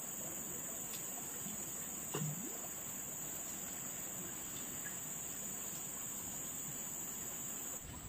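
Steady high-pitched drone of insects chirring in the surrounding vegetation, unchanging throughout, with one brief faint low sound about two seconds in.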